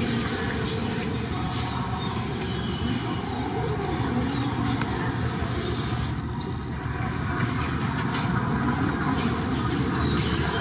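A steady low mechanical hum, like an engine running nearby, with scattered light clicks.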